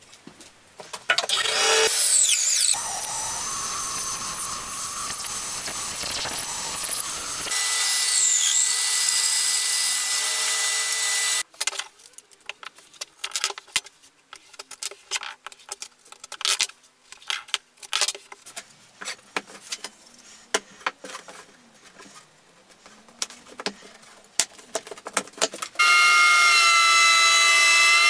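Woodworking machines in sequence. First a power saw cutting wood for about five seconds, then a different machine running steadily for a few seconds. Then a long stretch of small clicks and knocks as thin wood strips are handled and taped, and near the end a benchtop thickness planer running with a steady whine.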